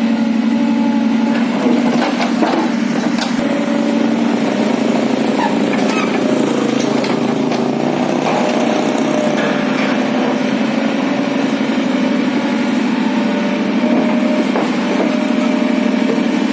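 A small engine running steadily, with a few short knocks over it.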